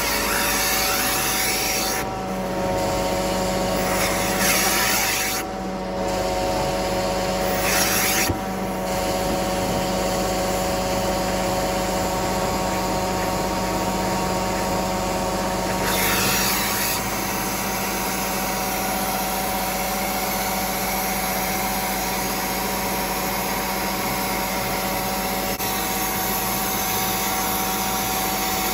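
Vacuum motor of a carpet-cleaning machine running steadily with a whine, its noise shifting briefly a few times in the first half as the tool is worked over the carpet to flush out the stains.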